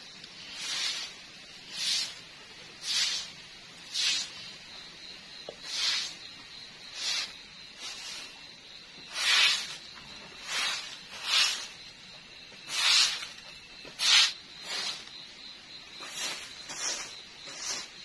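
Soft grass broom sweeping a concrete floor: a steady run of short swishes, about one a second, some strokes louder than others and coming a little quicker near the end.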